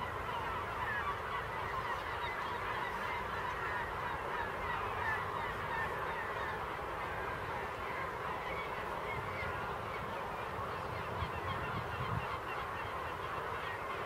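A large flock of yellow-legged gulls calling continuously, with many short cries overlapping one another and no pause.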